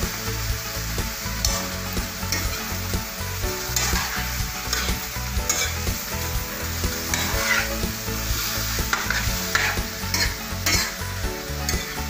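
Raw chicken pieces being sautéed with ginger and onion in a stainless steel wok, sizzling steadily, while a metal spatula stirs them, scraping and clinking against the pan at irregular moments.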